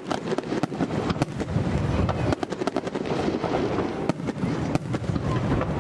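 Aerial firework shells bursting, with many sharp crackling pops in quick, irregular succession over a steady low rumble.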